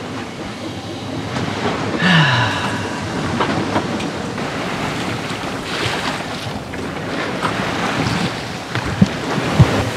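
Water rushing and splashing along the hull of a sailboat under sail through waves, with wind noise. About two seconds in, a short sound slides down in pitch, and two sharp knocks come near the end.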